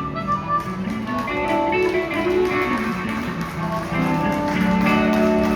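Live blues band playing an instrumental passage between sung lines, with guitar to the fore.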